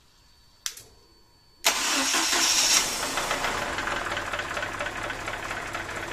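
A single sharp click, then about a second later a Mercedes-Benz M102 2.0-litre 8-valve four-cylinder, cold and running on home-built electronic fuel injection, starts right away. It is loudest for its first second, then settles into a steady idle.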